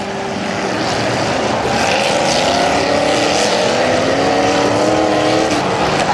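Demolition derby car engine running loud and rough, its pitch slowly rising and falling as it revs, heard up close from a camera on the car's hood.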